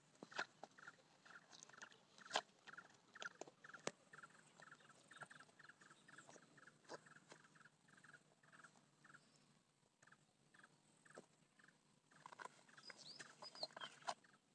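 Faint crackles and snaps of dry banana-trunk sheath and fibre being handled and tied. Under them runs a steady series of short chirps, about three a second, from an animal in the background, which slows after about nine seconds. A few brief bird notes come near the end.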